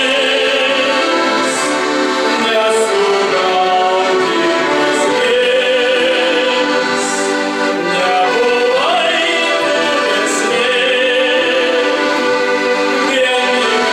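Male voices singing a song in Lithuanian with instrumental accompaniment, sustained held notes with vibrato.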